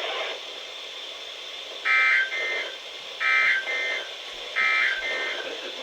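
NOAA Weather Radio SAME digital data bursts: three short, harsh, buzzy bursts of data tones about a second and a half apart, broadcast over a weather radio signal at the end of a required weekly test message.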